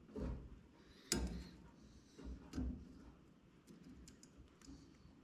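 Scattered light clicks and small knocks of parts being handled, the sharpest click about a second in, as a stubborn retaining clip is worked onto an aftermarket fuel pump assembly.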